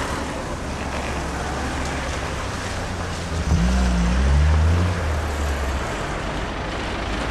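Street traffic: a steady hum of cars, buses and trucks, with one heavy vehicle's engine rising and then falling in pitch, the loudest moment, about halfway through.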